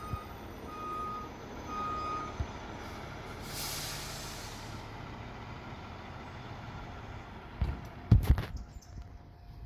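Fire ladder truck's reverse alarm beeping a few times, about once a second, then stopping. It is followed by a short hiss of released air and, near the end, a few loud knocks.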